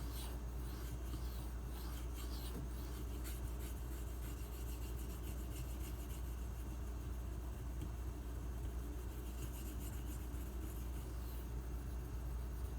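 M390 steel knife blade being stroked across the 4000-grit side of a Bernal Cutlery Takarazukushi combo sharpening stone, a steady, soft scraping rub.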